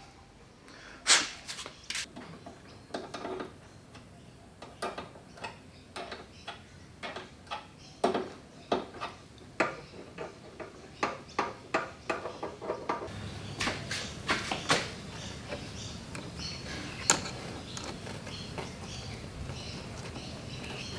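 Scattered clicks and knocks of hands working with metal hose fittings and tools on a car while fitting a clutch hydraulic line. A steady low hum comes in about two-thirds of the way through.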